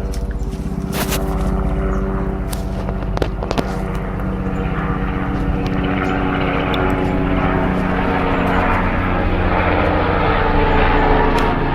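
Helicopter running: a steady drone of many even tones, with a few sharp clicks in the first few seconds and a rushing hiss that builds from about halfway in.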